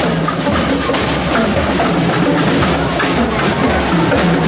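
A marching parade band playing, with drums beating steadily under the music.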